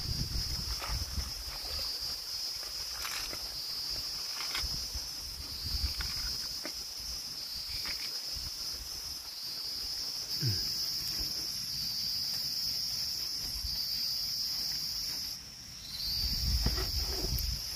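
Steady high-pitched insect chorus, with scattered light knocks and clicks and a low rumble near the end.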